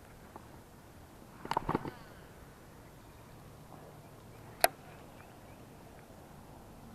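Fishing reel clicking during a cast with a topwater lure: a quick cluster of clicks and knocks about a second and a half in, then one sharp click about three seconds later.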